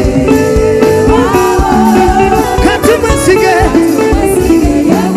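African gospel praise song: a singing voice over a band with guitar and a steady beat.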